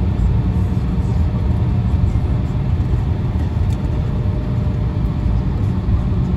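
Steady low rumble inside the cabin of an Embraer E175 taxiing on a wet taxiway, its GE CF34-8E turbofans and rolling wheels running together, with a faint steady tone above the rumble.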